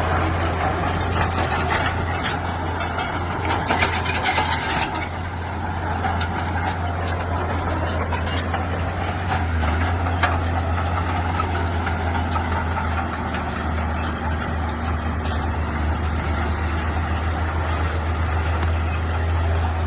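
Bulldozer's diesel engine running steadily with a deep drone, with scattered clanks and knocks from its steel crawler tracks and blade working over stone.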